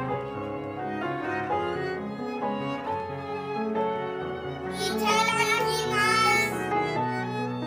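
Instrumental background music, bowed strings over piano, with a brighter, higher passage a little past the middle.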